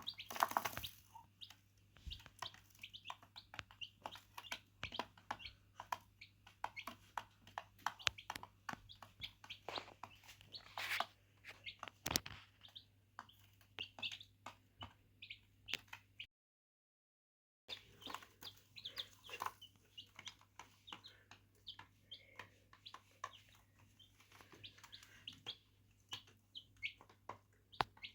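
Chicks peeping, with many quick light clicks of beaks pecking at hard surfaces or food. The sound breaks off completely for a moment about midway, then the peeping and pecking resume.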